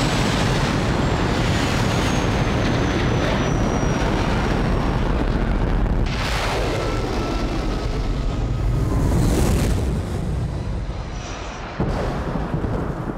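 Thunderbird 3's rocket engines roaring through a launch and climb, a loud steady roar with a thin falling whistle over the first few seconds and a fresh surge near the end.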